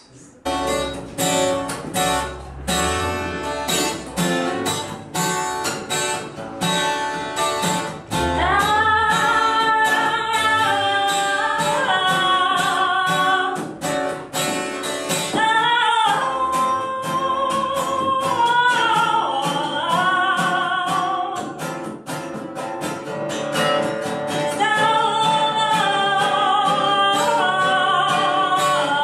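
A song with acoustic guitar: plucked guitar alone at first, then a singing voice comes in about eight seconds in, holding long wavering notes over the guitar.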